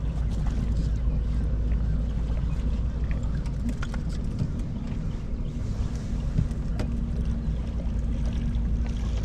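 Steady low rumble of wind and water around a small fishing boat, with a few light clicks and knocks scattered through it.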